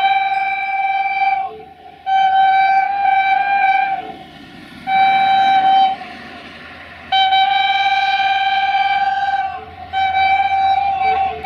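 Air horn of the diesel locomotive GM 64-1357-4 sounding a run of about five blasts, some about a second long and some over two seconds. Each blast holds one steady pitch. A low rumble from the approaching train lies underneath.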